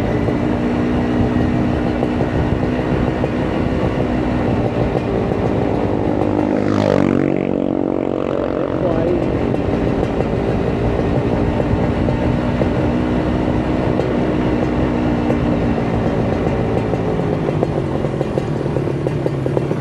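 Kawasaki Ninja 150 RR's two-stroke single-cylinder engine running on the move, its pitch rising and falling with the throttle. About seven seconds in, a brief rushing noise sweeps through.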